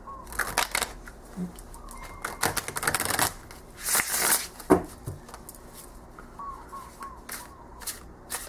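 A deck of tarot cards being riffle-shuffled: rapid patters of card edges flicking together in a couple of bursts, then a louder rush as the cards cascade down off a bridge about four seconds in, followed by scattered taps as the deck is squared up.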